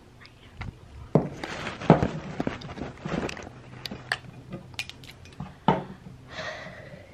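Footsteps and the knocks of a handheld phone being carried while walking: a string of irregular thumps and clicks, about one every half second to a second.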